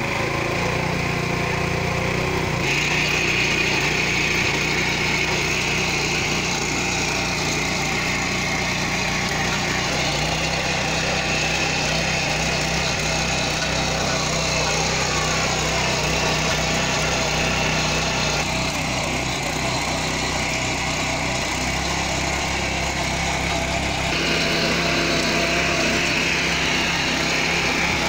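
The 7 HP single-cylinder petrol engine of a walk-behind power tiller running under load while its standard blades till weedy ground. The engine note shifts a few times as the load changes.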